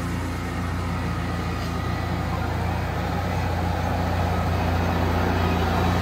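New Holland tractor's diesel engine running steadily, a low even hum that grows slightly louder.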